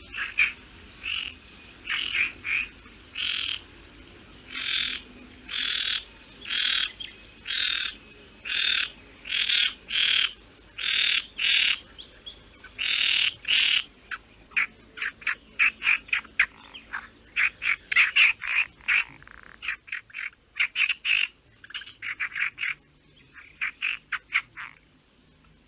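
Crow cawing: a run of harsh caws about one a second, then quicker, shorter calls through the second half.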